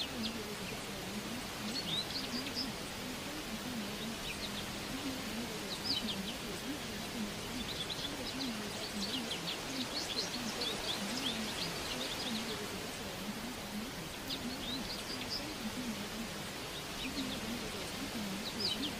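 Birdsong recording: small birds chirping in scattered clusters over a steady hiss of background noise. Beneath it, a faint low voice wavers on without clear words, the masked affirmation track of a subliminal.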